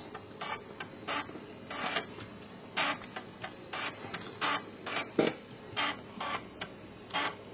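Amiga 1200's floppy drive clicking and seeking, in short, irregular mechanical clicks and brief buzzes about two a second.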